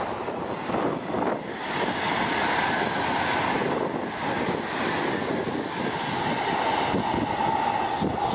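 Taiwan High Speed Rail 700T train running past at speed: a steady rushing noise with a faint steady whine and wind buffeting the microphone.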